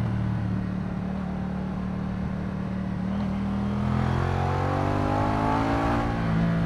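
Moto Guzzi V100 Mandello's transverse V-twin engine running under way: steady at first, then its note rising from about four seconds in as the bike accelerates.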